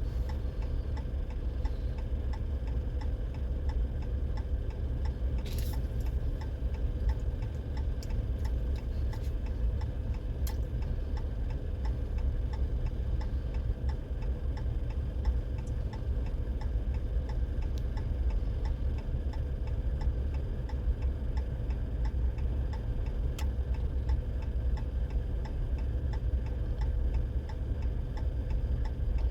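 Car's hazard-flasher relay ticking steadily inside the cabin, over a steady low rumble.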